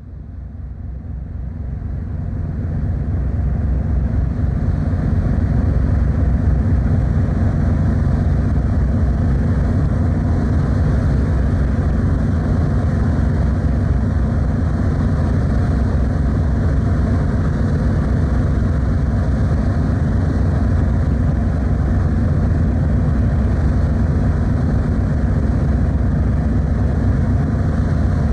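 Steady low rumble of the car ferry Kuniga under way, its engines and the water heard from on board, fading in over the first few seconds.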